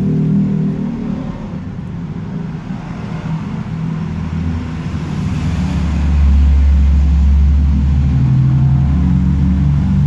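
A motor vehicle's engine running steadily, growing louder about six seconds in.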